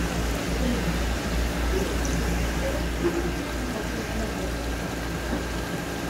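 Water running steadily into a live-fish tank, a continuous pouring and splashing flow with a faint steady hum under it.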